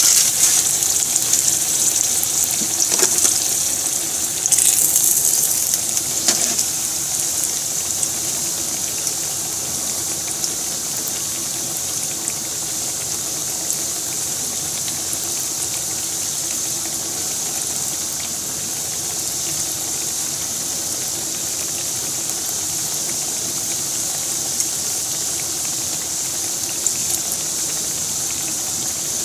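Croquettes frying in shallow oil in a frying pan, the oil sizzling steadily with a high hiss and faint crackles. It is a little louder for the first few seconds, then settles to an even level.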